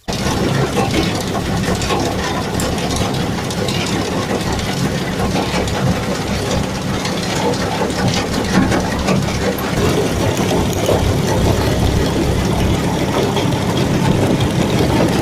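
Rice combine harvester running, a loud, steady, dense machine noise that cuts in abruptly at the start.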